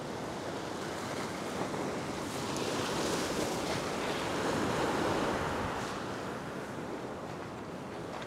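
Ocean surf washing over a flat rock ledge: a steady rush of white water that builds to a peak around the middle and eases off near the end.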